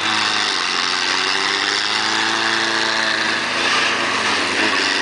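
A 4x4's engine running steadily, its pitch drifting gently up and down, over a steady rushing noise.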